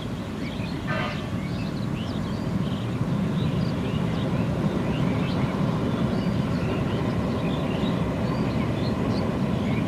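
A steady low rumble that grows louder over the first few seconds, with many short high chirps over it.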